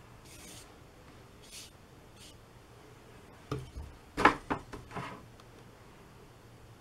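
A few soft swishes, then a cluster of knocks and scrapes from about three and a half to five seconds in, the loudest about four seconds in: a watercolour brush being worked in the pans of a paint box.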